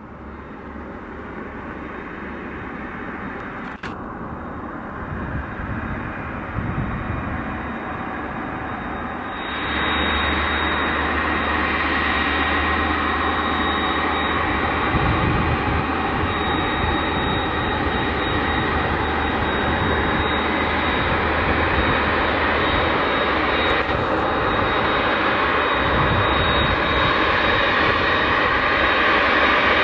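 Airbus A300-600F freighter's twin turbofan jet engines at taxi power: a steady rushing noise with a thin high whine. It grows louder as the aircraft taxis closer, stepping up clearly about a third of the way in.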